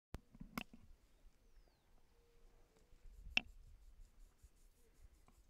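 Quiet outdoor background broken by a few sharp taps, a cluster in the first second and the loudest one just after three seconds in.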